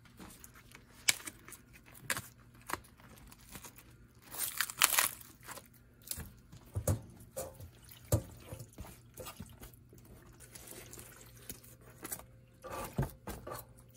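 Plastic wrap being torn and peeled off foam trays of raw chicken livers, crinkling and rustling, with a louder rustle about four seconds in. Near the end the wet livers are tipped from the trays into a metal colander, with a few light knocks and squelches.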